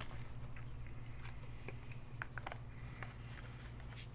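Faint, scattered light clicks and ticks of trading cards being handled and slid against one another, over a steady low hum.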